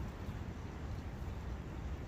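Steady forest ambience of wind and a brook: an even rushing noise, heaviest in a low rumble, with no distinct events.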